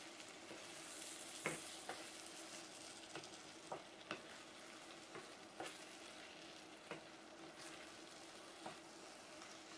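Wooden spatula stirring chicken pieces in a thick orange sauce in a frying pan, knocking against the pan now and then with short sharp clicks, over a faint steady sizzle of the simmering sauce.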